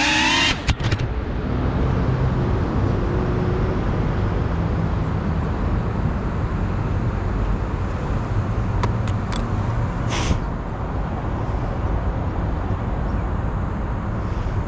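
Steady hum of road traffic, with a few short clicks and a brief scrape of gear being handled about nine to ten seconds in. Background music cuts off in the first half second.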